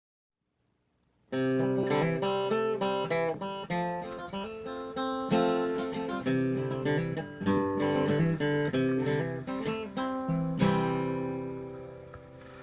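Acoustic guitar music, plucked notes in a steady picking pattern, starting after about a second of silence and ringing out at the end.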